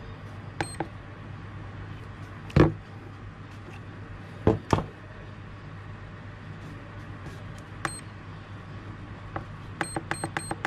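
Hobby LiPo balance charger beeping at each button press as its charge settings are stepped: a single short high beep, another later, then a quick run of about five beeps near the end. A few louder knocks come in between, over a steady low hum.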